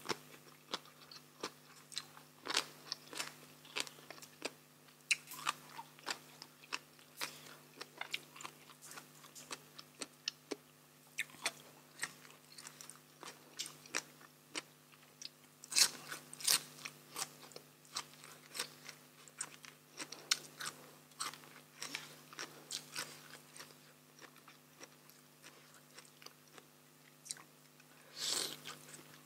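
Close-up chewing and biting of crunchy raw vegetables and papaya salad: many crisp crunches and wet mouth sounds scattered throughout, the loudest about halfway through.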